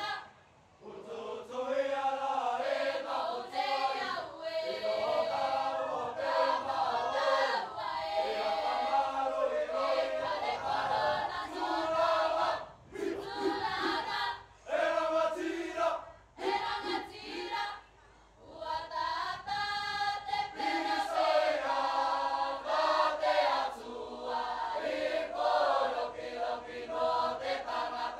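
Cook Islands choral singing by a mixed group of men and women, in long sung phrases broken by brief pauses.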